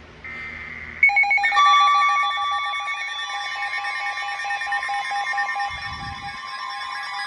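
Emergency Alert System tones: a short buzzing data burst ends about a second in, then a loud, steady warning alarm of several held tones with a fast pulse sounds, the attention signal that comes before a spoken warning. A brief low thump sounds about six seconds in.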